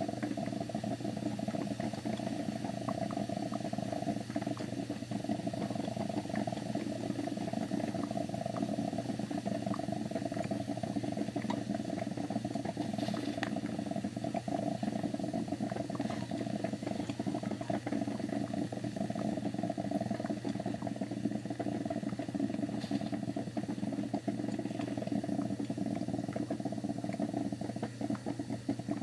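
Broken, leaking coffee machine running with a steady buzzing hum that does not let up.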